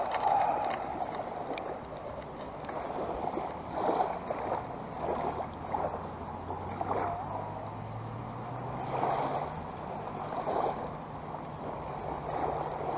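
Small waves lapping and sloshing in the shallows in irregular swells, with a low steady hum that comes in about five seconds in.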